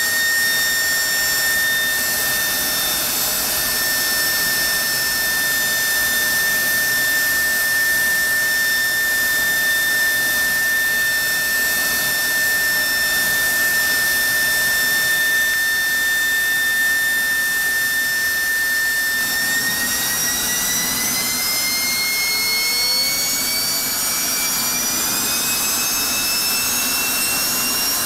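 General Electric F110-GE-100 turbofan running on a test stand in an enclosed engine test cell: a loud, steady roar with a high whine held at one pitch. About two-thirds of the way through, the whine starts rising steadily in pitch as the engine speeds up.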